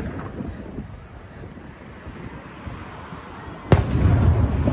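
Aerial firework shell bursting with one sharp boom a little under four seconds in, followed by a rolling low rumble. Before it, the rumble of an earlier burst fades out.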